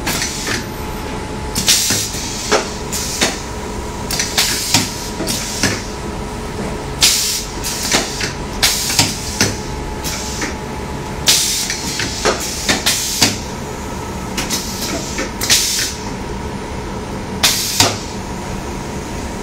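Silicone tube bonding machine running with a steady hum, broken by repeated short hisses and sharp clacks at irregular intervals, more than a dozen times.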